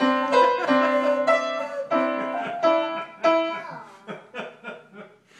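A handheld whistle blown in a tune of held notes, with a child's piano notes alongside. The playing grows sparse and fades out near the end.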